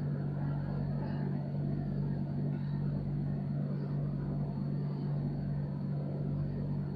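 A steady low hum, like room equipment or a fan running, with no other distinct event.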